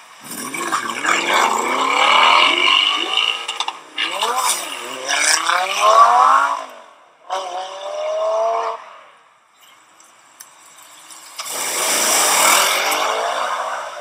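Supercar engine accelerating hard, its note climbing steeply in pitch and dropping back at each upshift, then fading out about nine seconds in. A few seconds later another loud car engine rises and falls as a car goes by.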